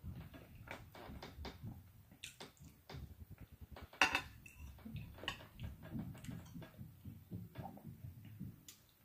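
Close-miked chewing and mouth sounds of someone eating green beans and biscuit, with small clicks of a metal fork on a plate. One sharp clink about four seconds in is the loudest sound.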